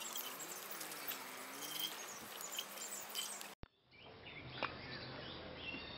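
Outdoor rural ambience: birds chirping and insects over a soft steady haze, cut off by a brief dropout a little past halfway and followed by quieter ambience with a few light clicks.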